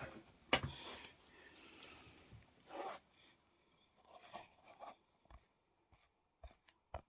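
Faint scattered knocks and clicks with a short rustling scrape, like things being handled in a small room: a sharper knock about half a second in, a scrape near the middle, then a few light knocks near the end.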